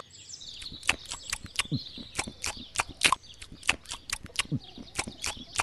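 Faint birdsong ambience with a run of sharp, irregular clicks or taps, several a second, and two short low falling tones.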